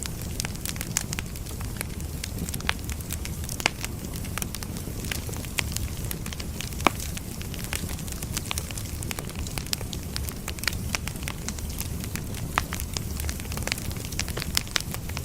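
Burning firewood crackling, with a steady low rumble of the fire under scattered sharp pops and one louder pop about halfway through.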